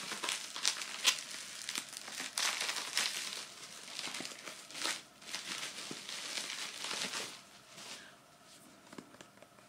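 Packaging crinkling and rustling under the hands as the next item is unwrapped, in irregular crackly bursts that die down near the end.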